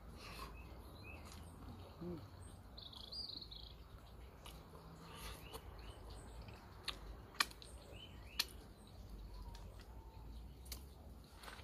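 Faint birds chirping, scattered short calls, with two sharp clicks about a second apart past the middle.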